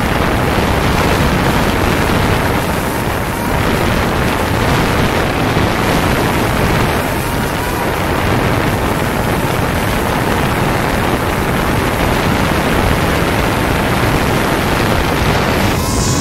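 Quadcopter drone's propellers and motors running at close range: a loud, steady rushing whir with a faint whine, and rotor wash buffeting the microphone. Near the end the sound changes, with wavering whines coming in as a hand takes hold of the drone.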